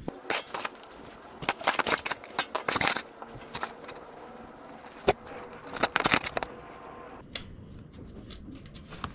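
A 17 mm wrench working loose the oil drain plug of a Honda VTX 1300S: clusters of sharp metal clicks and knocks, one run in the first three seconds and another a little past the middle.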